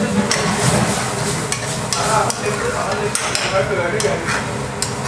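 Metal spoon stirring and scraping through chopped tomatoes and peppers in a metal frying pan, with irregular clinks of the spoon on the pan over the sizzle of the simmering sauce.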